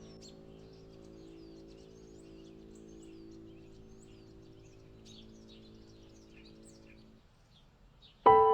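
Small birds chirping and twittering in many quick, short calls over low held music tones that fade out about seven seconds in. Near the end a loud piano chord is struck and rings on.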